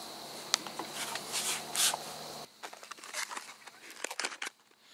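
Rustling of clothing and gear with a few small sharp clicks as a rifle is handled, over a faint steady background.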